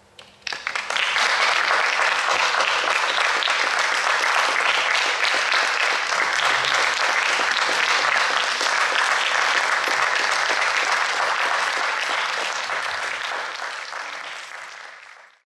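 Audience applauding, breaking out suddenly about half a second in, holding steady and tapering off near the end.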